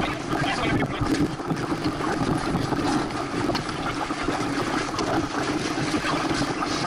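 Wind buffeting the microphone and water rushing along the hull of a Santana 525 sailboat under sail, a steady wash of noise with a constant hum underneath.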